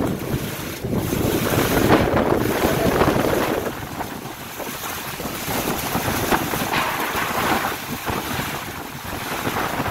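Strong storm wind buffeting the microphone in gusts that swell and ease, with rain falling.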